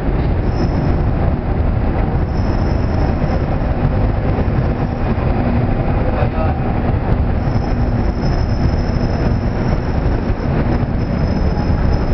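Argo Bromo Anggrek passenger coaches rolling past close by during shunting: a steady rumble of wheels on the rails.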